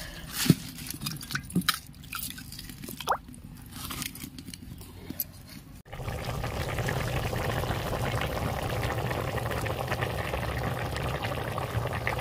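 Light clinks and knocks of kitchen utensils. About six seconds in, the sound changes abruptly to a steady, even pour of water.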